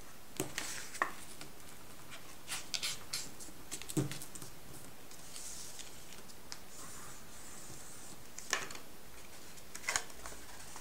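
Paper being folded and creased by hand on a tabletop: scattered soft taps and rustles, with a stretch of paper sliding and rubbing about halfway through.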